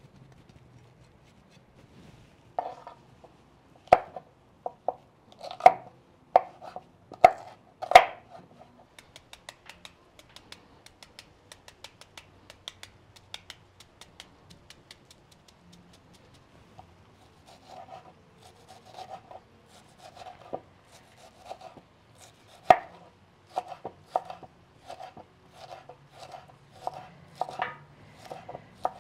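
Kitchen knife chopping chiles and onion on a wooden cutting board. A few loud chops come first, then a fast run of light taps, then steady chopping at about two strokes a second.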